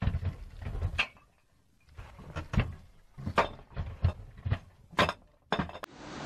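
A run of sharp, irregular knocks and thuds, about a dozen. A steady rushing noise starts near the end.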